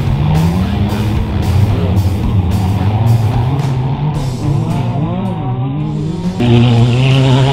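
Rock music with guitar, mixed with racing car engines revving and falling in pitch. The sound changes abruptly near the end.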